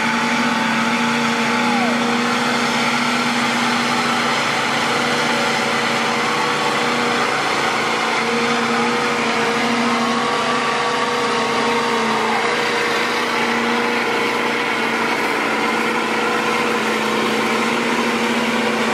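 Lifted mud trucks' engines held at high revs in a truck tug of war, a loud steady drone whose pitch dips now and then as the drivers ease and reapply throttle, with the tractor tires spinning.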